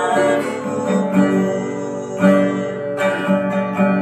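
Acoustic guitar strummed in a steady rhythm over a low bass line, part of a song; a voice sings one word about a second in.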